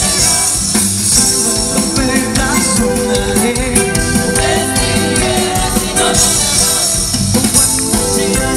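Lively worship music with singing, bright jingling percussion such as a tambourine on top.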